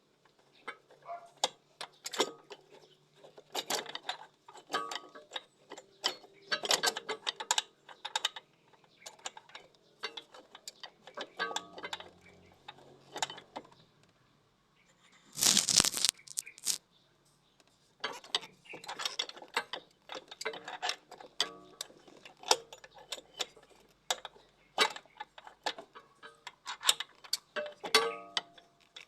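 Hand tools and metal parts clicking and clanking irregularly as a cleaned EGR valve is refitted, with a louder rushing burst about halfway through lasting about a second.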